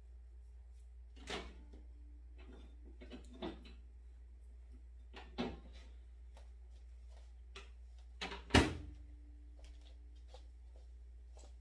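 A few scattered knocks and clunks, four plainer ones a couple of seconds apart, the loudest a sharp bang about eight and a half seconds in, over a steady low hum.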